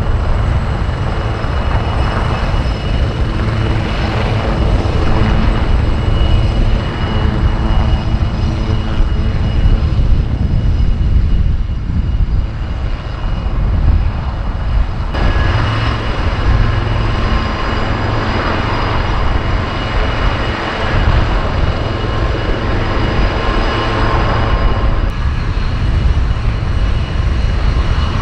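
AgustaWestland AW159 Wildcat helicopters running on the ground, rotors turning. Their twin turboshaft engines whine with several steady high tones over a heavy low rotor rumble. The sound shifts abruptly about halfway through and again near the end.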